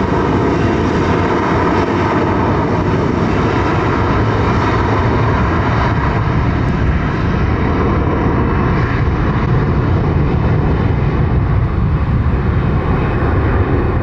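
Airbus A320's jet engines running as the airliner taxis onto the runway: a loud, steady jet noise with a whine in it, the low rumble growing stronger in the second half.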